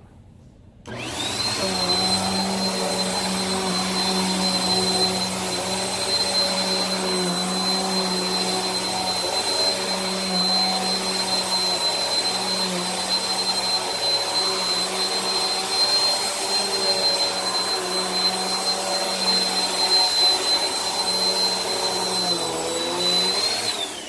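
Bissell PowerForce Helix upright vacuum switching on about a second in and running steadily on carpet, with a high steady motor whine over its airflow noise. It shuts off near the end.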